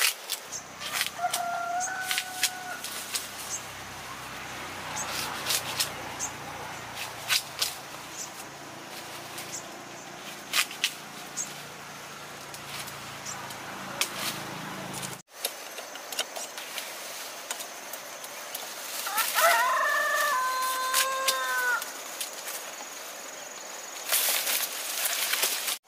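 Sugarcane stalks and dry cane leaves rustling, crackling and snapping as they are pulled and broken by hand, in sharp irregular clicks. A rooster crows once in the background, about three-quarters of the way through, with a shorter call near the start.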